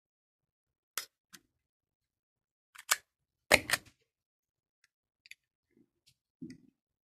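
Trodat 4810 self-inking date stamp being handled and pressed onto a pad of paper: a series of sharp plastic clicks and clacks. The loudest is a double clack with a low knock about three and a half seconds in as the stamp comes down on the page, followed by faint ticks and a dull knock near the end.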